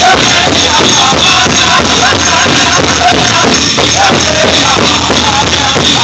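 Powwow music: a drum group singing in high voices over a steady drumbeat on a big drum, accompanying the men's prairie chicken dance.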